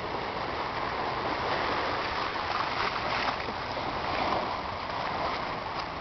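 Shallow seawater washing around algae-covered shoreline rocks, a steady rush that swells a little midway through.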